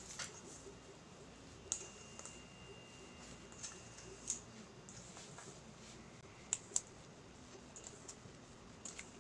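Spatula stirring cookie dough in a stainless steel bowl: scattered sharp clicks and scrapes of the spatula against the metal, two of them in quick succession about two-thirds of the way through.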